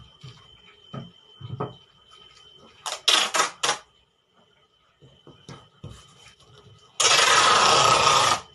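Packing tape being pulled off its roll onto a cardboard box: four quick rips about three seconds in, then one loud, long, even rip near the end, with light knocks of hands on the cardboard between.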